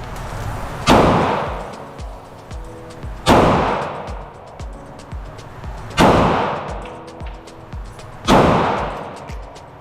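Four slow, aimed shots from a Glock 48 9mm pistol, spaced about two and a half seconds apart, each echoing for about a second in the enclosed range.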